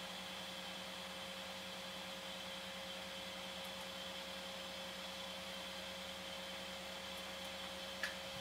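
Steady hum of a 3D printer's cooling fans and 12 V power supply, with a faint high whine over it. A single small click near the end.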